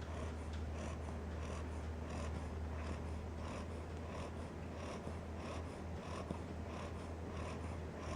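Ten-week-old cocker spaniel puppy snoring in its sleep: short, even breath sounds about twice a second, over a steady low hum.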